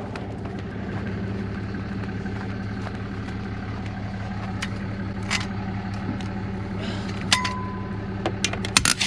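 Tow vehicle engine idling steadily, with a few sharp metallic clinks from a ratchet wrench and wheel chock being handled, a cluster of them near the end.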